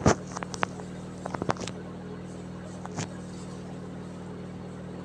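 A few light clicks and taps from handling bomboloni and a piping bag while filling the doughnuts one by one, clustered in the first two seconds with one more about three seconds in, over a steady low mechanical hum.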